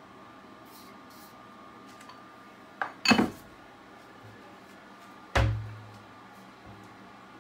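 Kitchenware being handled and set down: a light click, then a sharp clatter about three seconds in, and a heavy knock with a short low ring about five and a half seconds in.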